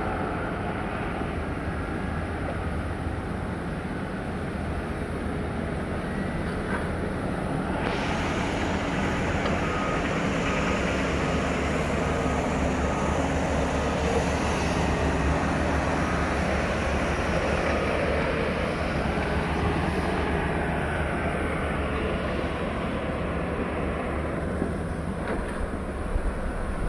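Large Volvo crawler excavator's diesel engine running steadily, with a brighter hiss joining about eight seconds in and easing off near the end.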